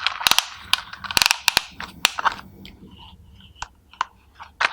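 Plastic toy excavator being handled, giving a run of sharp, irregular clicks and clatters, thickest in the first two seconds and thinning out after.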